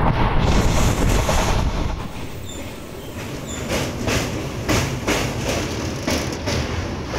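ICF passenger coach running at speed: a heavy rumble from the wheels on the track, which drops about two seconds in, then a regular clickety-clack of the wheels, about two to three beats a second, as the coach crosses a river bridge.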